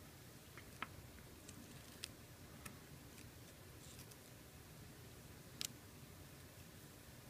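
A scalpel blade and forceps working open a boxwood leaf: a few faint, sharp clicks spread over several seconds, the loudest about two-thirds of the way through, over near silence.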